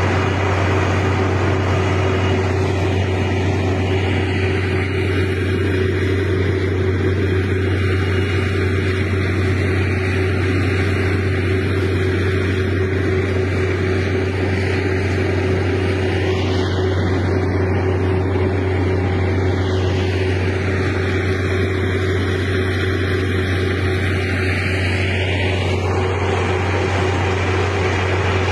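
Steady engine drone with a constant low hum and a hiss that sweeps slowly up and down in tone, twice, with a whooshing, phasing quality.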